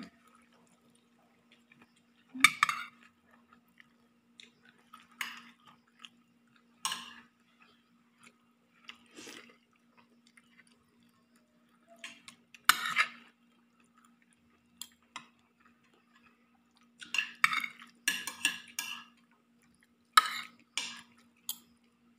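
Someone eating: scattered chewing and mouth sounds with light clinks against a plate, coming more thickly about two-thirds of the way in, over a faint steady low hum.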